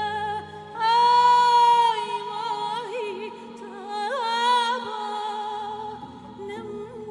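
A woman singing a slow, melismatic song, holding long notes with vibrato and quick ornamental turns, over a low sustained accompaniment. The loudest held note comes about a second in, and another rises near four seconds.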